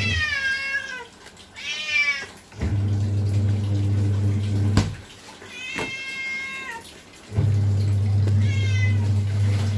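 A cat meowing four times, each call high and falling in pitch, over the low hum of a washing machine motor that runs for a couple of seconds, stops, and starts again.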